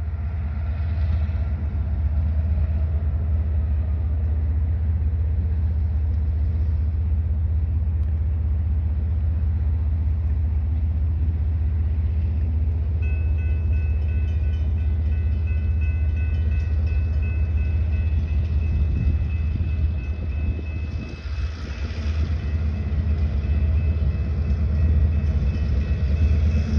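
Diesel locomotive approaching on single track with a low, steady engine rumble. From about halfway through, a faint, steady high whine sounds over it.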